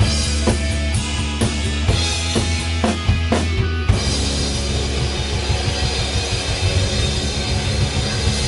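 Rock band playing live on electric guitars and drum kit, with drum hits on a steady beat about twice a second. About four seconds in, the playing thickens into a denser, fuller wash with the drums busier.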